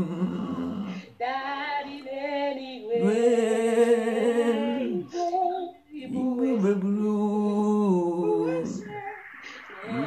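A voice singing a slow worship song unaccompanied, holding long notes with vibrato in phrases broken by brief pauses.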